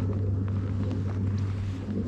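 A steady low hum under wind noise on the microphone, with faint scattered ticks.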